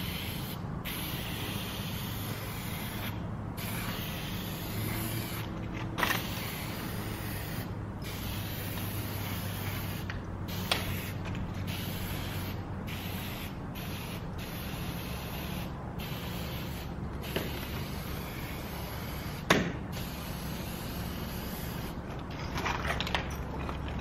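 Aerosol spray paint can hissing in long bursts with short breaks as letters are sprayed onto brick, with a few sharp clicks and a steady low hum underneath.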